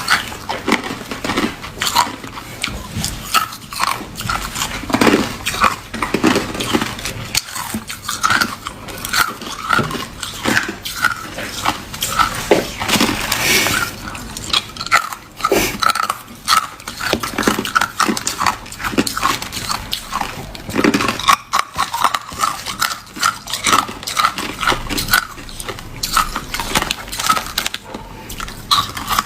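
Crushed clear ice being chewed and crunched in the mouth close to the microphone: a dense, continuous crackle of small sharp crunches, falling into an even chewing rhythm of about two bites a second.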